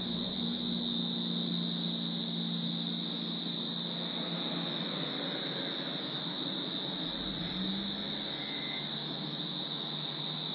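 Steady, high-pitched chorus of crickets, one unbroken shrill tone. Under it a low distant drone, like traffic or an aircraft, fades over the first half.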